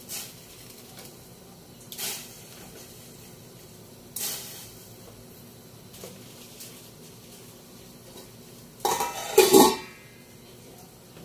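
Vegetable pieces dropped into a stainless steel pot of broth make three short sounds about two seconds apart. A little before the end comes a loud metal clatter with ringing as a metal pan is set down on the pot.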